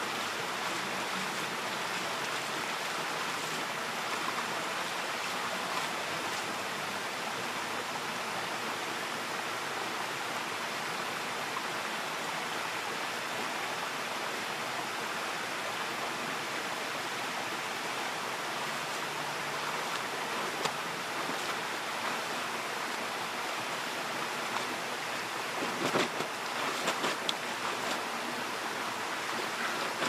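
Shallow creek water flowing steadily over stones. Near the end, a few splashes as laundry is handled in the water.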